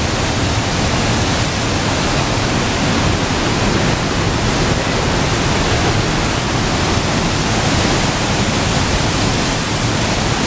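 Loud, steady rush of river water pouring over a concrete weir and through its outlets, crashing into churning white water below.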